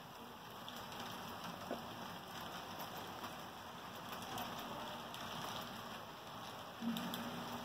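HO scale model freight train running slowly, its many cars' wheels rattling over the rails in a steady, fine clicking hiss. A low hum comes in about seven seconds in.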